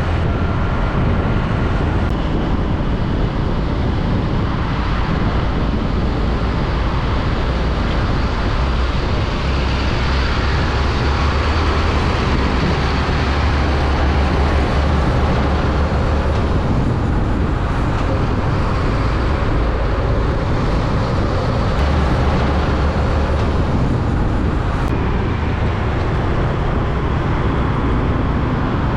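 Heavy diesel trucks driving past on a multi-lane road: a steady engine rumble with tyre noise on asphalt. The rumble grows loudest about halfway through, as a concrete mixer truck passes close by.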